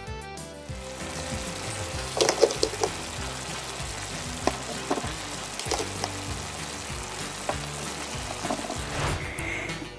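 Sizzling frying sound effect with a steady hiss, as toy fish are laid on a toy grill, over background music, with a few light clicks.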